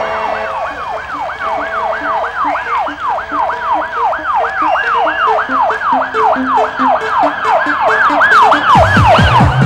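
Siren-style yelp sound effect: a pitch sweep rising and falling about three times a second over short rhythmic electronic blips. Near the end a low pulsing tone comes in and rises in pitch as a dance track begins.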